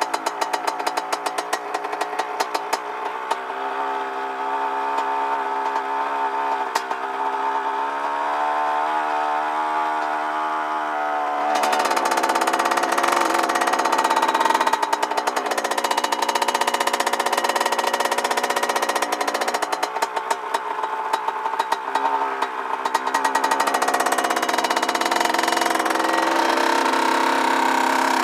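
Dirt bike engine running while ridden, its pitch climbing slowly for several seconds, then turning suddenly louder about a third of the way through and staying so.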